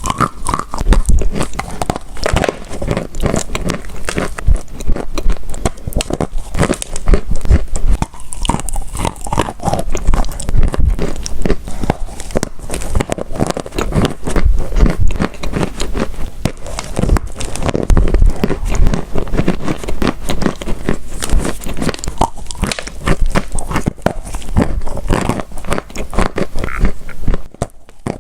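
Close-miked biting and chewing of dry edible clay: a dense, irregular run of sharp crunches and crackles as the pieces snap and grind between the teeth.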